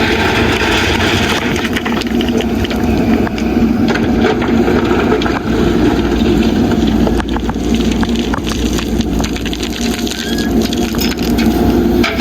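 JCB backhoe loader's diesel engine running steadily while loading gravel, with many short clinks and rattles of gravel and bucket.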